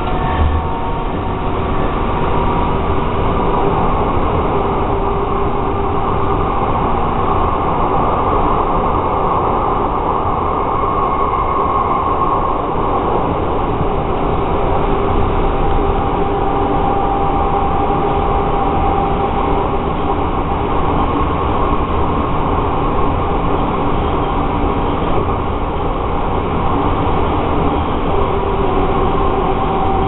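MAX light rail train running along the track, heard from inside the operator's cab: a steady rolling and running noise with faint whining tones that drift slowly in pitch.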